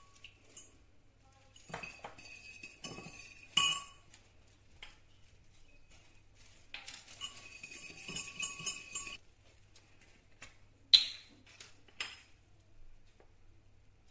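Metal wire whisk clinking against a ceramic mixing bowl while an egg is beaten: a few single ringing taps, then about two seconds of rapid whisking. Near the end there is one sharp clink, the loudest sound, and then a second, lighter one.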